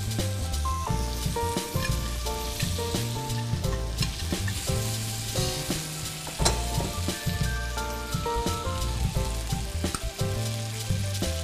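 Butter and caramelizing sugar sizzling in a non-stick frying pan as fruit skewers fry, with a sharp knock about six and a half seconds in. Background music with held notes plays over it.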